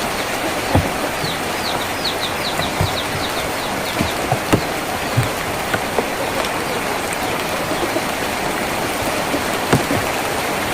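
Steady rain drumming on a tin roof, with scattered heavier drops knocking now and then. About a second in, a quick series of high chirps runs for a couple of seconds.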